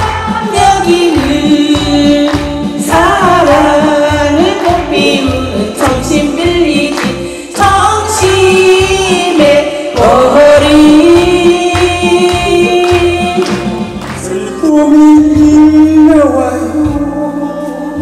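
Two women singing a duet into handheld microphones over instrumental accompaniment with a steady beat.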